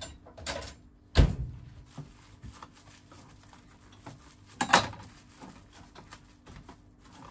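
Two sharp knocks of a kitchen knife and a wrapped sandwich being handled on a plastic cutting board, one about a second in and a louder-sounding one near five seconds. Light clicks and rustling of plastic wrap come in between.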